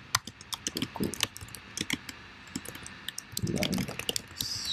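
Computer keyboard being typed on: quick, irregular key clicks as a line of text is entered. A brief low sound about three-quarters of the way in, then a short hiss.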